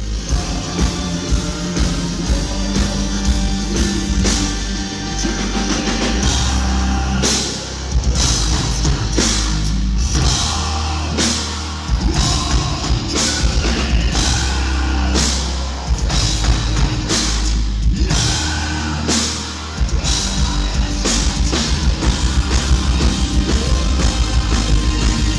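Gothic metal band playing live at full volume: heavy drums and a deep bass under sung vocals.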